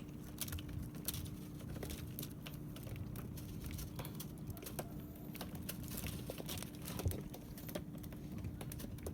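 Irregular light clicks and taps, some close together and a sharper one about seven seconds in, over a steady low hum.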